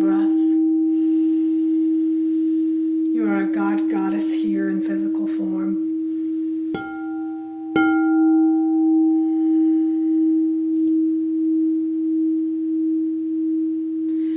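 Crystal singing bowl sounding a steady, pure low tone throughout. It is struck twice, about seven and eight seconds in, each strike adding higher ringing overtones that fade over a few seconds, after which the tone pulses gently in loudness.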